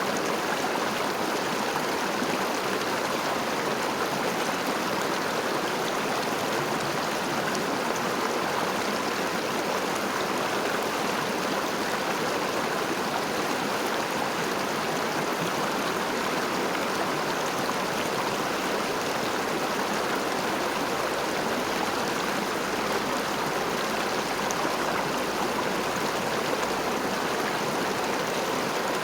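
River water flowing over stones: a steady, even rushing with no change.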